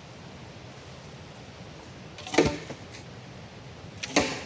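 Two sharp strikes about two seconds apart, the second near the end, over a steady hiss of rain.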